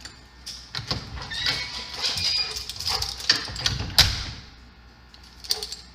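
A dog whining briefly amid household clatter and knocks, with one sharp knock about four seconds in.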